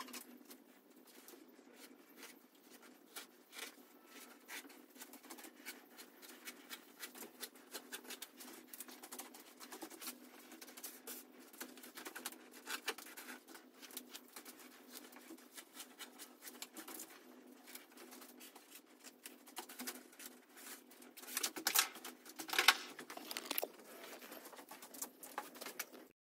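A rapid, irregular patter of small clicks and rustles, with a louder flurry about three-quarters of the way through.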